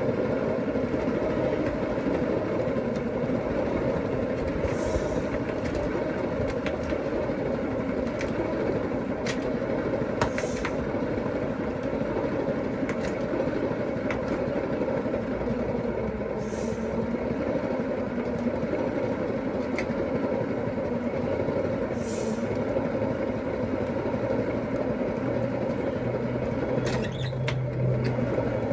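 Spin dryer of a mini manual washing machine running steadily as it spins a load of wet clothes, with a brief high hiss about every five to six seconds.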